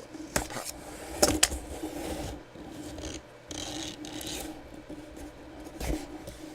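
Cardboard box and packaging being opened and handled: uneven rubbing and scraping, with a few sharp clicks and knocks, the loudest about a second and a half in.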